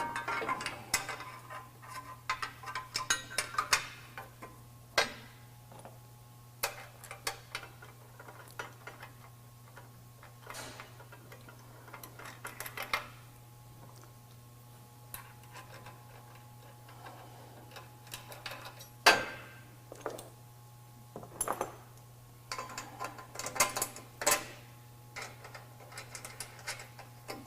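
Irregular metallic clinks, taps and rattles of a steel frame bracket, bolt plate and nuts being handled and fitted at the end of a pickup's frame rail, with nuts being threaded on by hand.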